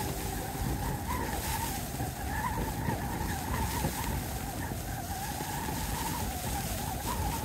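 Strong gusting wind buffeting a Stone Glacier Sky Solus 1p tent, with a constant low rumble and a wavering whistle that rises and falls with the gusts. The wind is around 40 mph.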